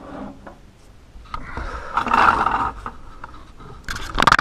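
Lada Niva door's hand-cranked cable window regulator being wound, the glass moving in the bare, unlined door: a scraping sound from about a second and a half to nearly three seconds in, then a short loud clatter near the end.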